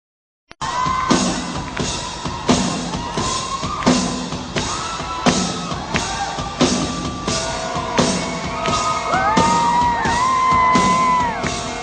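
A live rock band playing in a large hall, with a steady drum beat and electric guitar, heard from the audience; it starts abruptly about half a second in. Fans scream and whoop over it, most in the second half.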